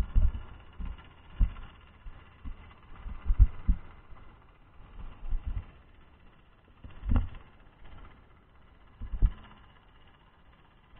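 Irregular low, muffled thumps and knocks picked up through an underwater camera housing, about eight in all, the loudest a little after three seconds in and just past seven seconds.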